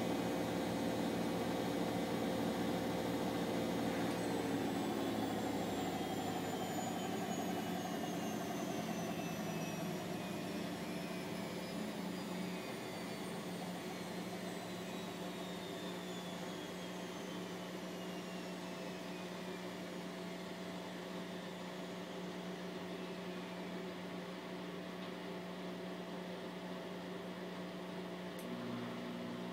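Bosch WVT 1260 front-loading washing machine winding down from its 1200 rpm final spin: the motor and drum whine falls steadily in pitch and the running sound slowly fades as the drum slows. Near the end there is a click, and a new low hum starts.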